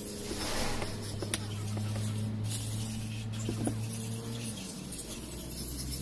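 A low, steady machine hum whose pitch drops about four and a half seconds in, with a few light metallic clicks as a truck engine's piston and connecting rod assembly is handled and laid down.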